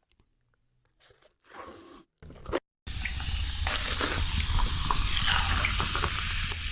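Close-miked food sounds: a few soft crunches and wet squishes, then from about three seconds in a loud, steady crackling noise with a low hum underneath.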